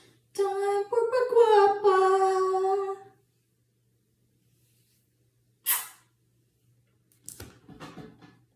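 A woman's voice singing a short wordless phrase of held notes for about three seconds. A short hiss comes a few seconds later, and soft handling noise with light knocks comes near the end.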